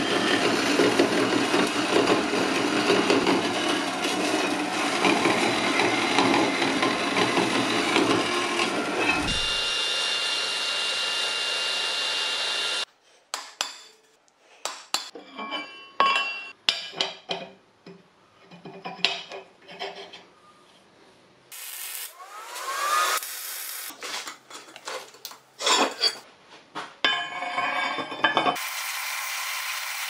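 Hand deburring tool scraping around the edge of a drilled hole in a steel plate, a fast steady rasping. After about nine seconds this gives way to scattered separate clicks, taps and short metal scrapes with quiet gaps, and near the end a steady running noise starts as a band saw cuts into the steel.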